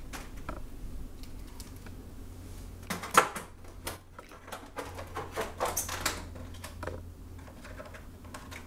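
LED T8 tubes clicking and tapping against a sheet-metal light fixture as they are fitted and their end pins are seated in the tombstone lampholders. A sharp click comes about three seconds in, then a run of small clicks and taps about five to six seconds in.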